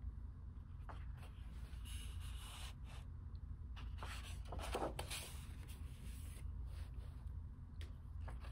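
Large paper pages of an oversized hardcover book being turned by hand: several rustling swishes of paper, the loudest about halfway through, over a steady low hum.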